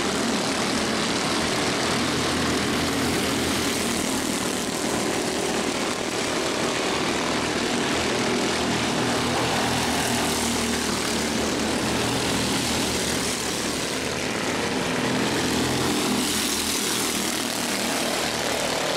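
Engines of a field of CEMCA Mini Cup race cars running laps on an oval, a steady unbroken drone.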